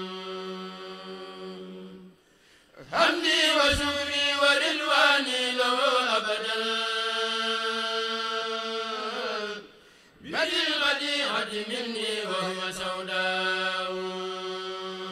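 Men's voices chanting a Mouride khassida in Arabic without instruments, drawing out long held notes with slow melodic turns. The chant breaks off briefly about two seconds in and dips again near ten seconds, each time coming back in on a new phrase.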